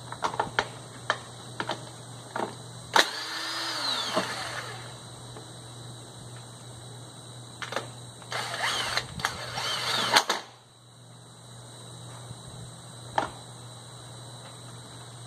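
Handheld power tool run in two bursts while taking bolts off an engine, a short one and a longer one, its whine falling as it slows at the end of each. Sharp metal clicks of tools and parts come before and after the bursts.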